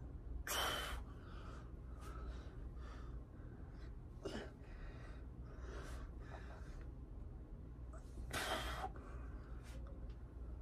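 A man breathing hard through a set of dumbbell curls, with short, forceful exhales. The two loudest breaths come near the start and again about eight seconds in, with quieter breaths between.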